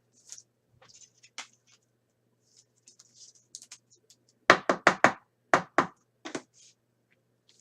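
Objects handled on a tabletop: faint rustling and scraping, then about four and a half seconds in a quick run of about eight sharp knocks and taps over some two seconds.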